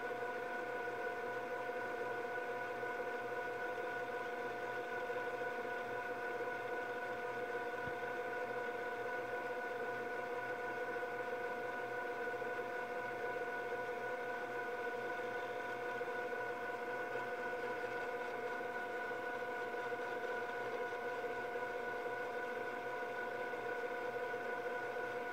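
Panasonic NV-MS1 S-VHS camcorder fast-forwarding an E180 VHS cassette: a steady mechanical whir from the tape transport, with a few high steady tones that hold their pitch throughout.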